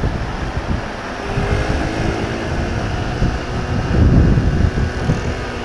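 Wind buffeting the external microphone of a moving Honda CB150R StreetFire motorcycle, with the bike's engine note faintly underneath. The gusts are strongest about four seconds in.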